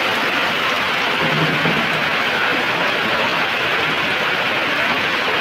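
Heavy rain pouring down on the metal-sheeted market sheds, a loud, steady rushing hiss.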